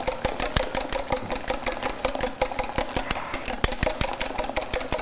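Wire whisk beating double cream by hand in a small stainless-steel saucepan, the wires clicking against the metal in rapid, even strokes, about eight a second. The cream is close to whipped.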